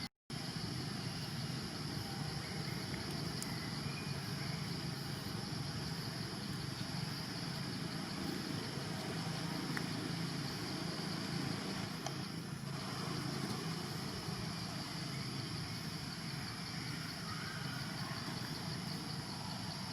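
Steady outdoor background noise: a low hum under a steady high-pitched drone, cutting out completely for a split second just after the start.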